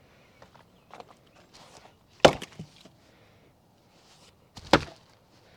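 Two axe blows into firewood rounds, a little over two seconds apart, each a sharp loud chop; a few lighter wooden knocks come before them in the first two seconds.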